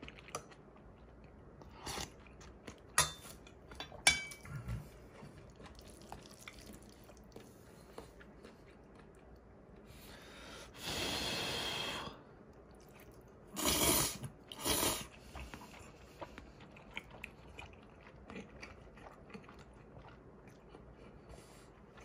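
Close-miked eating: chewing and crunching of food, with small wet clicks throughout and a few sharper crunches in the first few seconds. About halfway through comes a longer noisy slurp, followed by two short loud slurping sounds.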